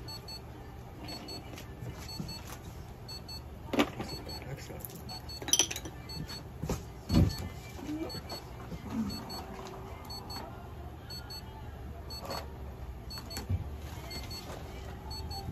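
A steady low hum, with a few sharp clicks and knocks and some brief faint murmuring sounds.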